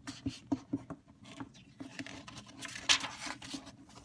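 Glossy comic book being handled, its pages rubbed and turned: a string of short taps and scrapes, with a louder paper rustle about three seconds in.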